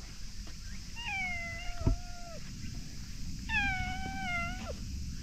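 Orange tabby cat meowing twice, two long drawn-out meows each sliding down in pitch at the end. A single thump lands during the first meow.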